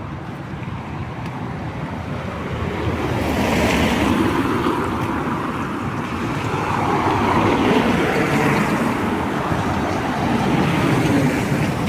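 Cars passing on a rain-wet street: the hiss of tyres on wet asphalt swells and fades several times as they go by.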